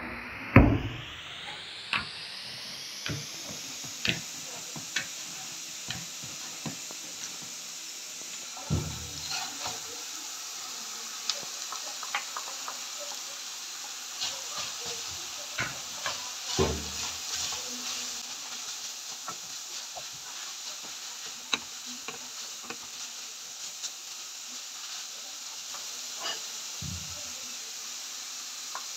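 Minced beef sizzling steadily in a pan on a gas stove, with scattered knocks and scrapes of a wooden spoon against the pan as it is stirred.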